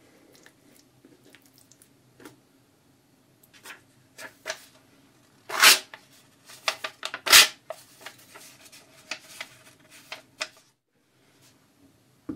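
Knife made from underwear fabric slicing raw chicken on a wooden cutting board with faint soft taps, then a sheet of paper rustling and being sliced. The paper sounds are the loudest: two crisp swishes about a second and a half apart around the middle, followed by a run of shorter crackles.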